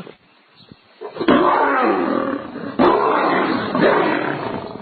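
A lion roaring: a loud roar begins about a second in and comes in three long surges, tailing off near the end.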